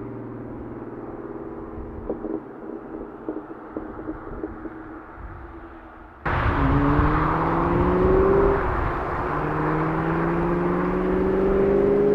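Supercharged 4.6-litre V8 of a 2003 Ford SVT Cobra through an aftermarket exhaust. It runs steadily at light load with a few light knocks, then about six seconds in it cuts abruptly to a louder recording of the car accelerating: the engine note rises, drops at a gearshift, and rises again.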